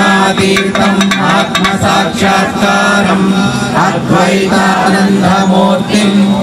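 Devotional group chanting: a woman's voice through a microphone leads and devotees sing along, over a steady held drone note.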